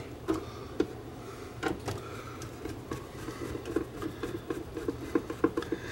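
Light, irregular clicks and taps of hands handling the opened plastic cabinet and chassis of a small colour CRT TV, coming more often in the second half, over a low steady hum.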